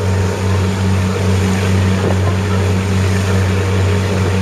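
Small passenger ferry's engine running with a steady low drone, over a constant rushing hiss as the boat crosses open water.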